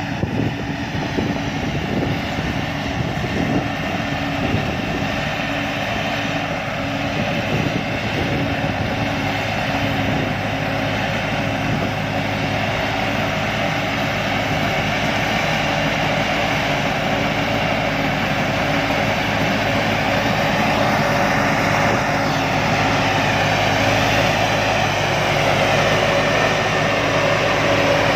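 Rice combine harvester's engine and machinery running steadily, growing slightly louder toward the end.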